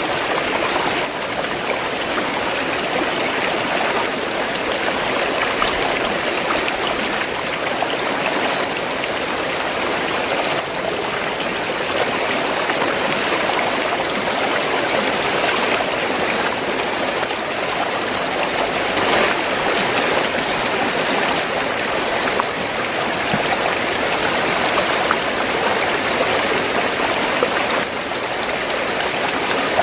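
Fast-flowing stream water rushing and gurgling steadily.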